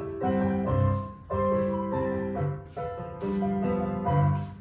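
Jazz-style piano music for ballet class, chords changing about once a second in a steady rhythm.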